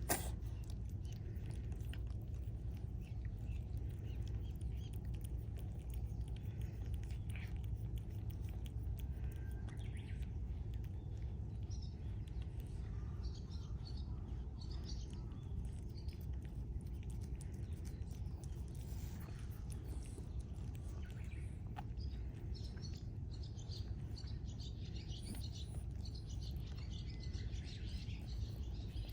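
A steady low rumble, with faint high bird chirps here and there that come more often in the second half.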